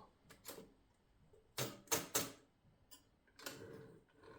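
Paper release lever and platen of a 1950 Mercedes Model 6 typewriter being worked by hand: a handful of sharp mechanical clicks and clacks, the loudest three close together about halfway, then a brief scraping click.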